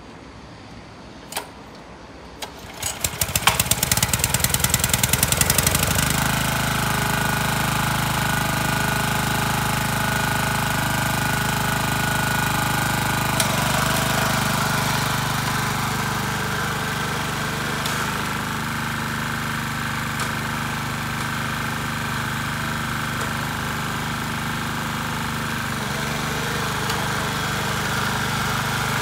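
Honda F510 5-horsepower tiller engine starting: it catches about three seconds in with loud, rapid, even firing, then settles after a few more seconds into a steady run.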